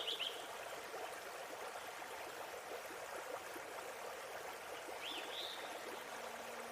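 Forest waterfall's running water, a steady rush, with a few short bird chirps at the start and again about five seconds in.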